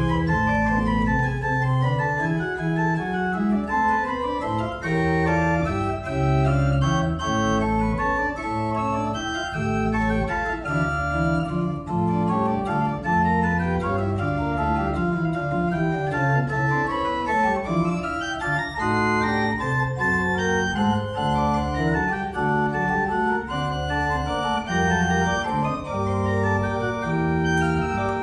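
Berghaus pipe organ (Op. 72, 1988) playing a piece: lines of notes moving quickly over held low pedal notes.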